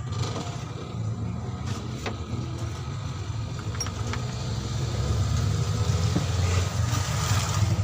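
A motor vehicle engine idling steadily, growing louder about five seconds in, with a few light metallic clinks.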